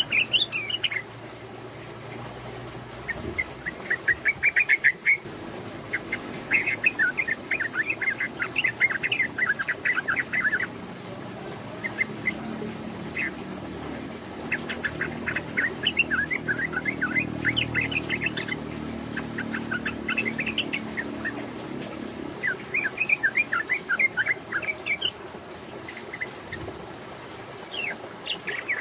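Female yellow-vented bulbul giving its fast, rattling chatter (the 'ropel' call) in repeated bursts of one to a few seconds, the call a female uses to draw a male.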